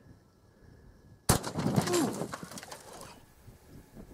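A single 12-gauge shotgun shot firing a Brenneke Special Forces slug about a second in: one sharp blast with a trailing tail of echo.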